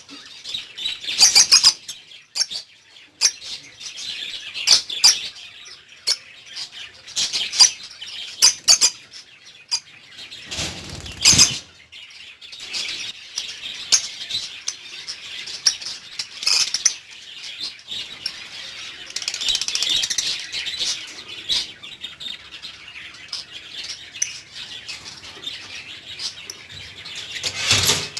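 Lovebirds chirping and chattering in many short, high calls, with sharp clicks scattered through and a burst of wing flapping about ten seconds in.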